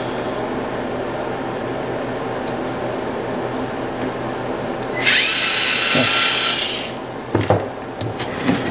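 Cordless drill/driver whirring for about two seconds, about five seconds in, backing screws out of the amplifier's cover, followed by a couple of short knocks. A steady hum runs underneath throughout.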